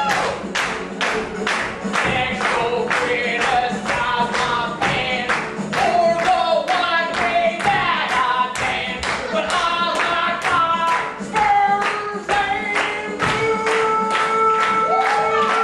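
Improvised sung song: a voice singing a wandering melody over steady rhythmic hand clapping, about two to three claps a second, ending on a long held note.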